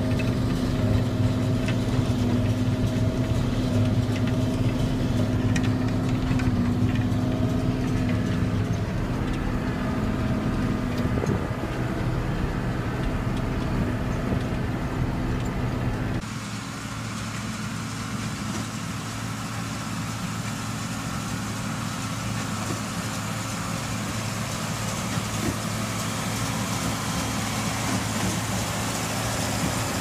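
John Deere 4640 tractor's diesel engine running steadily with a low hum. About halfway through the sound changes abruptly: the low hum drops back and a higher hiss comes in.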